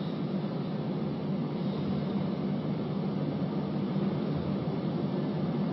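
Steady background hum and hiss of an ice rink hall, even throughout with no distinct events.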